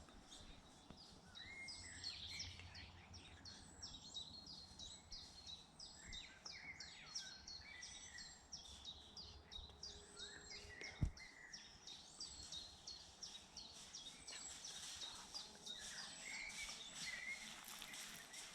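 Faint chorus of several birds singing and calling, a busy mix of short chirps and trills. One sharp knock about eleven seconds in.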